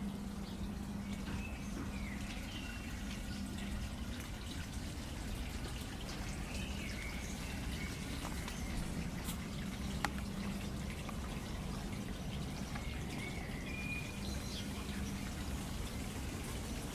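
Light rain falling on garden foliage, a steady soft hiss with scattered sharp ticks of drops dripping off wet leaves.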